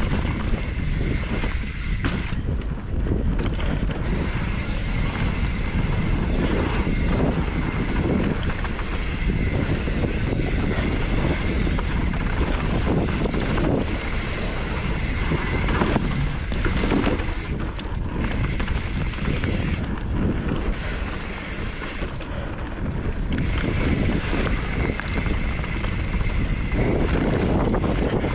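Wind buffeting a helmet or chest camera's microphone while a YT Tues downhill mountain bike rolls fast over dirt, roots and rocks, the bike rattling and knocking over the bumps.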